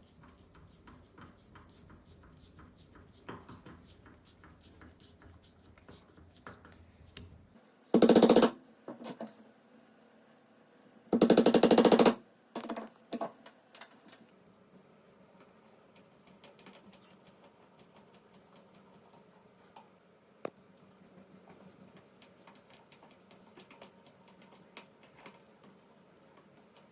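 Cordless impact driver driving screws into door hinges: two short rattling bursts, the second longer, amid light clicks and taps of handling.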